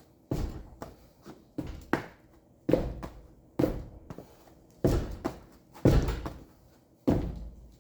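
About eight heavy thuds, roughly one a second, from a foot kicking the tyre of a car wheel seized onto its hub by rust to break it free.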